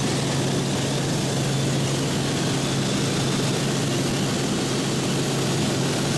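Helicopter in flight heard from inside the cabin: a steady drone with a constant low hum under an even rushing noise.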